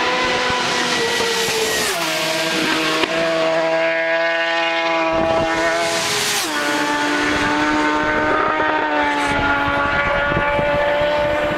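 Superbike racing motorcycles at full throttle: a steady high-revving engine note that steps down in pitch about two seconds in, then a loud close pass about six seconds in, the pitch dropping as the bike goes by.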